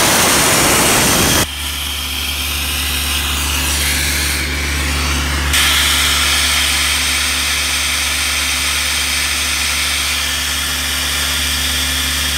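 Multiquip towable air compressor running with its diesel engine at a steady pace, and air rushing loudly from an open outlet until it cuts off sharply about a second and a half in. A higher, steady hiss of air starts about halfway through, over the engine.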